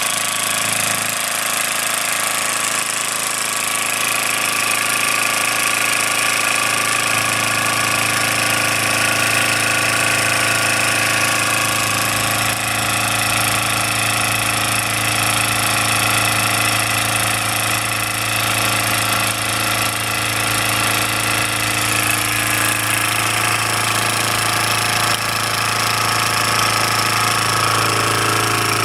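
Bowman M140 model steam engine running fast on live steam, a rapid mechanical beat that holds steady and even.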